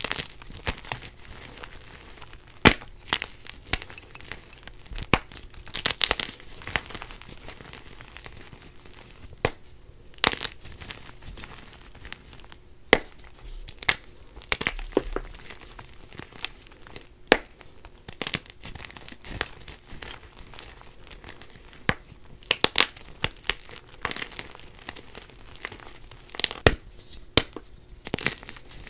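Blocks of dyed gym chalk being squeezed and broken apart by hand: dry crunching and crumbling, with irregular sharp snaps as pieces break off.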